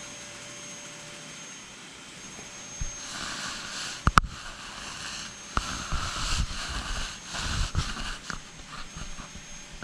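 Handling noise from a camera being carried and turned: a faint steady hum at first, then rustling and rubbing, one sharp click a little after four seconds in, and a few soft thumps.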